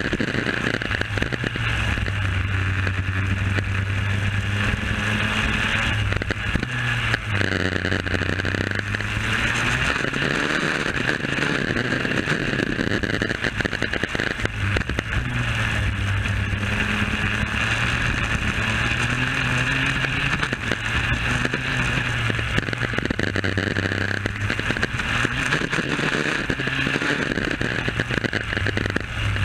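Superkart's 250cc two-stroke engine running at speed, heard from on board: the engine note climbs under acceleration and drops back several times as the driver lifts and gets back on the throttle around the lap.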